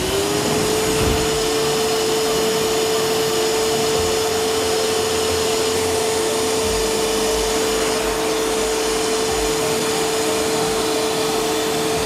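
Nilfisk Buddy II 12L wet-and-dry vacuum cleaner switched on, its motor spinning up with a short rising whine and then running steadily with an even whine and rush of air. It is set up as a blower, with the hose fitted to the rear exhaust port.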